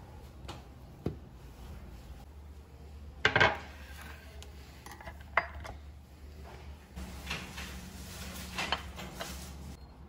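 A wooden cutting board and a steel knife being set down and handled on a granite kitchen countertop: a loud clack about three seconds in, a sharp click about two seconds later, and lighter knocks and rustles, over a low steady hum.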